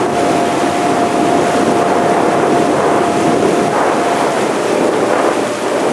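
Motorboat under way at speed: water rushing along the hull and wake, with wind buffeting the microphone. A steady whine runs beneath it and fades out about four seconds in.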